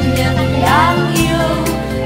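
Music with a steady beat of about two beats a second over sustained bass notes.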